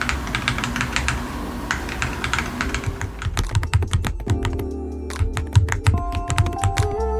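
Typing test on a mechanical keyboard fitted with TTC Flip King of Magnetic magnetic switches, PBT Cherry-profile keycaps and a PC plate in a KBDfans GT-80 case: a fast, even run of key strokes. About three seconds in, the typing recording cuts off and background music begins.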